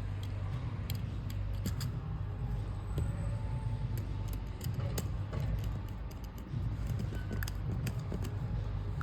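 Small clicks, snips and scrapes of hand tools and wire ends being worked at a switch's screw terminals, scattered irregularly, over a steady low hum.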